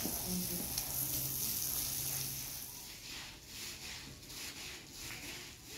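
Long-handled stiff brush scrubbing a wet carpet, water from a garden hose hissing over it. From about three seconds in the scrubbing comes as even back-and-forth strokes, roughly three a second.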